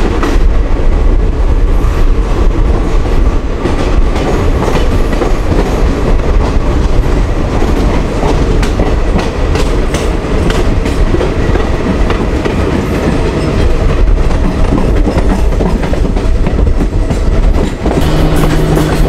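Passenger train rolling out of a station, heard from an open coach doorway: a steady heavy rumble with wheels clicking over the rail joints.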